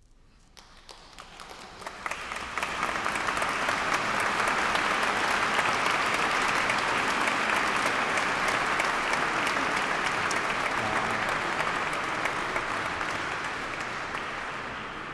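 Audience applauding, swelling over the first two or three seconds and tapering off near the end.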